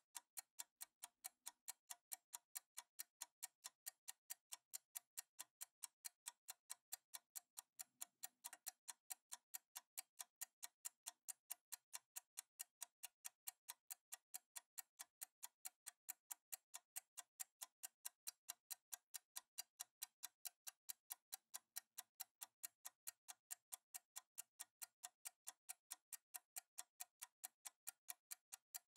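Faint, even clock-like ticking, several ticks a second.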